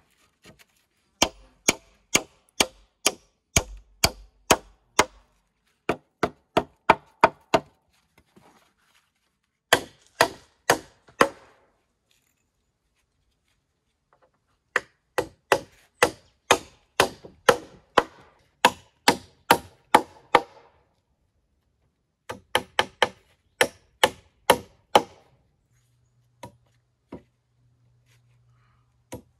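Sharp strikes on wood in five bursts, about three strikes a second, with short pauses between the bursts.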